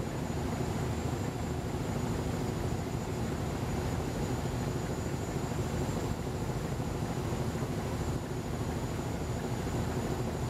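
Steady drone of a loaded river LPG tanker's diesel engine running under way, with an even hiss of water and wind.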